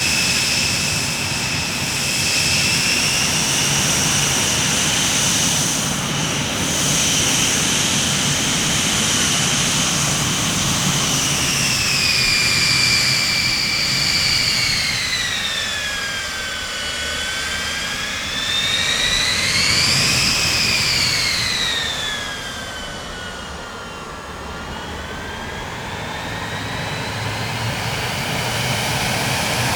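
Jet airliner engines: a steady rush with a high turbine whine that falls in pitch, swells back up about twenty seconds in, then falls again as the sound eases slightly.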